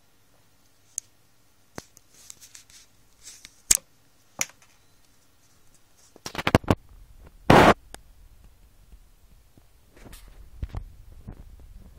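Handling noise around a plastic tub: scattered clicks and knocks, then a run of scraping and rustling with one loud scrape about halfway through, and low rumbling after.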